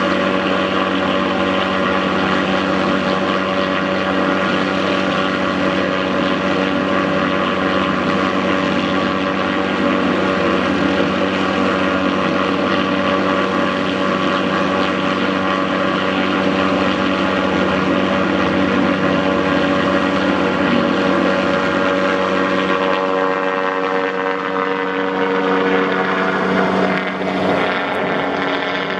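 MD 530F helicopter running in flight: the steady whine and buzz of its turbine engine and main rotor, with the pitch wavering briefly near the end.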